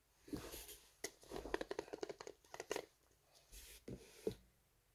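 Hands shaking a Magic 8 Ball: a run of rapid rustling clicks for about two seconds, followed by a few softer handling knocks.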